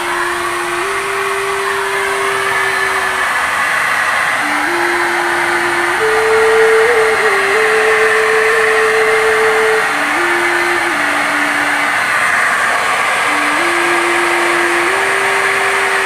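Handheld electric HVLP paint spray gun running steadily, its motor blowing air and atomising paint. Over the motor runs a clear tone that steps between a few pitches, like a simple melody.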